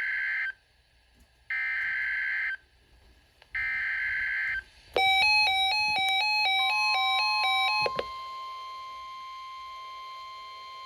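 Emergency Alert System header: three harsh, buzzing digital data bursts about a second long and a second apart, the first already under way. About five seconds in comes a quick run of electronic beeps, stepping between pitches for about three seconds. Halfway through that run a steady single-pitch alert tone begins, typical of the NOAA Weather Radio warning alarm, and it continues.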